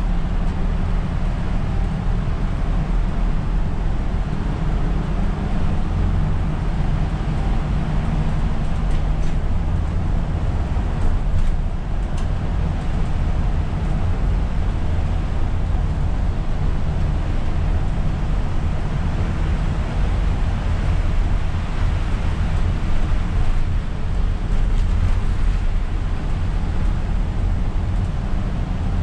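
Isuzu Erga city bus under way, heard from inside the driver's cab: steady low diesel engine and drivetrain rumble with the hiss of tyres on a rain-soaked road.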